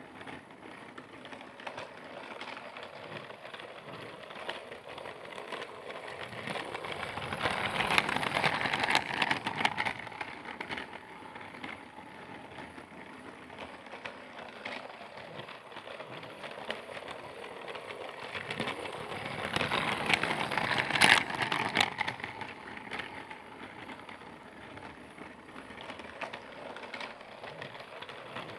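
Percy train running: a steady clattering run that grows louder twice, about twelve seconds apart, with scattered sharp clicks at the loudest points.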